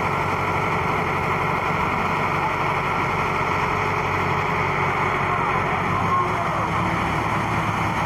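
Concrete transit mixer truck running steadily, its diesel engine driving the turning drum as wet concrete slides down the discharge chute.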